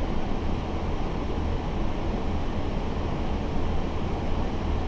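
Steady flight-deck noise of an Airbus A330-300 on final approach: a rush of airflow and engine noise over a deep, even low hum.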